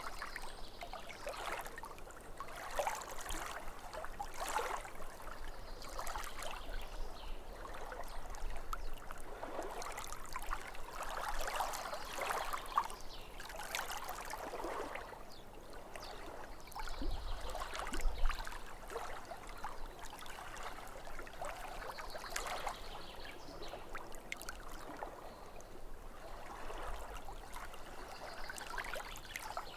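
Small lake waves lapping at the shore in an uneven run of gurgles and splashes, with a louder, deeper slap of water about eighteen seconds in.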